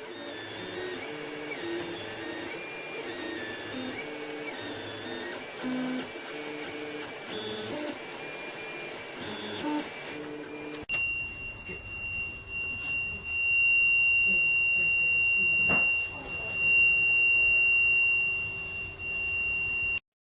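Creality Ender 3 V3 SE 3D printer running a print, its stepper motors whining in shifting, stepped pitches as the print head moves. About halfway through the sound changes abruptly to a louder, steady high whine.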